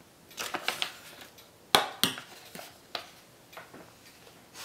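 Metal spoon scraping a food pouch and clinking against a bowl as soupy chili macaroni is spooned out. The sharpest clink comes a little under two seconds in, with a few lighter taps after it.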